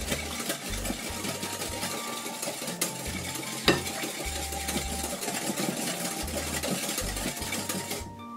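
A wire whisk beating thin liquid cake batter by hand in a glass bowl: a fast, steady clatter of the wires against the glass, with one sharper knock on the bowl about halfway through. The whisking stops just before the end.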